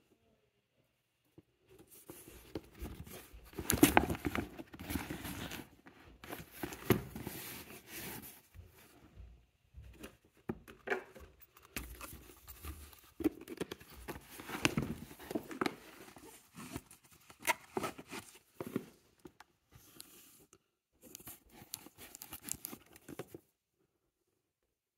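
Handling noise from a handbag held close to the microphone: irregular rustling, rubbing and scraping with small clicks as hands move the bag and its lining about. It stops near the end.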